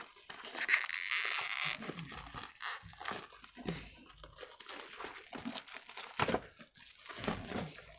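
Thin plastic shrink-wrap being torn and peeled off a paperback book by hand, crinkling and crackling, loudest about a second in with a sharp crackle a little after six seconds.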